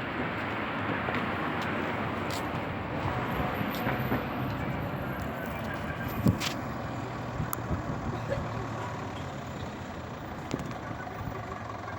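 Steady rushing wind of a sandstorm mixed with a vehicle engine running, with scattered clicks and one sharp knock about six seconds in.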